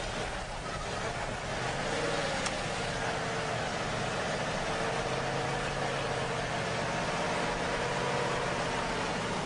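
A vehicle engine running steadily, its hum shifting up slightly about two seconds in and then holding.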